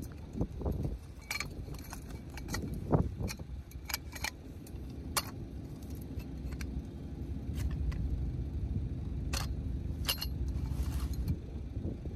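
Tent pole sections clinking and knocking against each other as they are handled and pulled from a carry bag, a dozen or so sharp separate clinks, over a low rumble of wind on the microphone. Paper rustles briefly near the end as the instruction sheets are unfolded.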